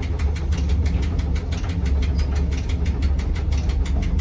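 Electric rack-railway railcar of the Rigi line running uphill, heard on board: a steady low drone with a fast, even ticking of about eight a second.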